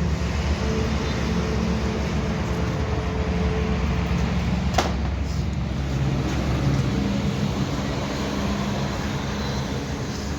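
Steady vehicle and road-traffic noise with a low engine hum, and one sharp click near the middle.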